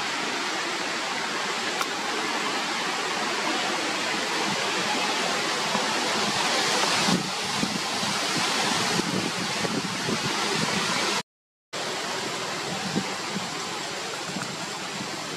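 Steady, loud rushing noise, hiss-like and even, with no clear calls or knocks. It cuts out completely for a moment about eleven seconds in.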